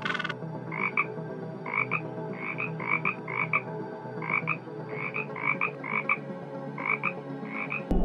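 A frog croaking: a dozen or so short croaks at an uneven pace, one or two a second, over a steady low hum.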